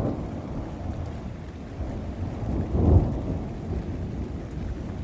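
Thunder rumbling after a lightning strike, building to its loudest about three seconds in and then fading, over steady rainfall.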